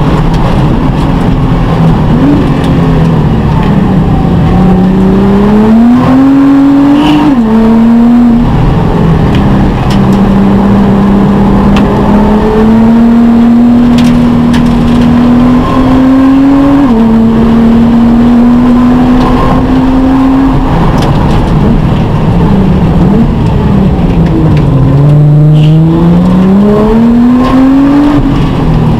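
Nissan GT-R R35's twin-turbo V6 engine heard from inside the cockpit at racing pace. Its pitch falls under braking at the start and again about 23 seconds in, and climbs under throttle between, with upshifts about 7 and 17 seconds in.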